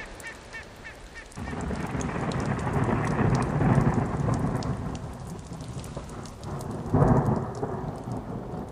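Thunder during a rainstorm, with rain pattering on the river's surface. A long low rumble builds about a second and a half in and slowly fades, and a second, sharper clap comes near the end.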